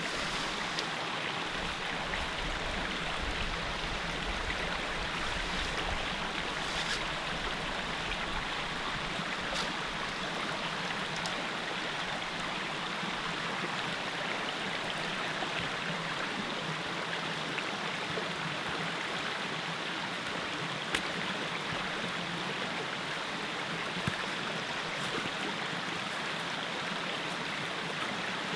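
Small mountain creek running over rocks: a steady rush of water, with a few faint clicks.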